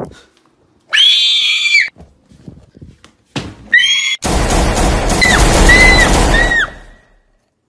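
Loud, high-pitched screaming: one shriek about a second in, a shorter one past three seconds, then a longer harsh, distorted scream with three falling squeals that fades out near the end.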